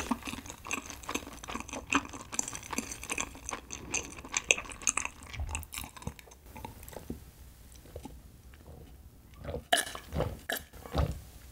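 Close-miked gulping and swallowing as a drink is taken in long draughts from a glass mug, with small wet mouth clicks. It goes quieter in the middle, then a few heavier swallows come near the end.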